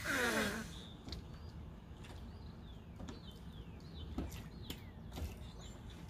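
A manatee breathes out at the surface with a short, loud huff that has a falling tone in it. After that a bird gives a run of short, downward-slurred chirps.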